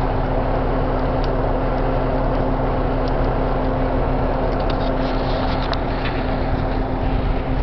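A large fire burning through a single-wide mobile home, a steady rushing noise with sharp crackles and pops that come thickest a little past the middle. A vehicle engine hums steadily underneath.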